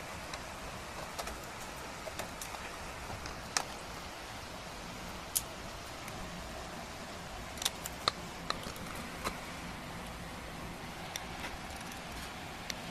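Scattered sharp clicks and taps of a screwdriver and small metal parts being handled on a fan motor's capacitor clamp and wiring, over a steady hiss.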